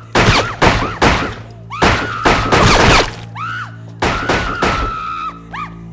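Gunfire: repeated sharp shots in several quick volleys, each followed by a ringing tail, over a steady low music bed.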